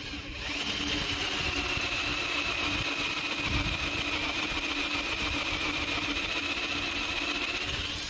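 Electric drill running steadily at low speed, its twist bit boring a hole in an iron doorstop: the tap-size hole for threads. It spins up just after the start and stops at the end.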